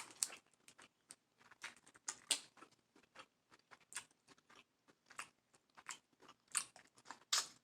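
A person chewing and smacking on seafood boil food: a run of short, irregular mouth clicks.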